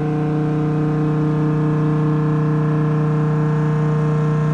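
SW BA 422 CNC horizontal machining centre cutting a metal block with a spindle-mounted tool, giving a steady, loud pitched hum with many overtones that holds without change.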